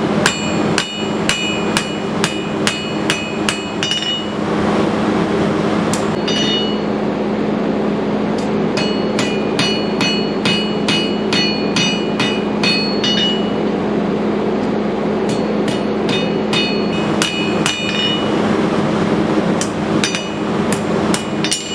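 Blacksmith's hand hammer striking hot steel on an anvil, widening out the punch stock, in runs of about three ringing blows a second with short pauses between runs. A steady low hum runs underneath.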